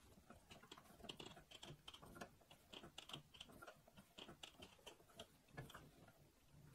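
Faint, irregular light clicks and taps of steel pipe pieces and a clamp being handled and fitted together by hand.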